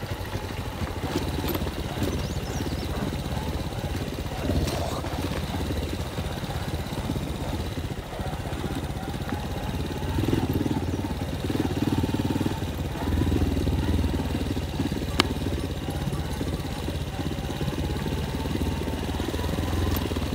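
Motorcycle engine running as the bike rides a rough dirt track, swelling louder a few times about halfway through. A single sharp click a little after.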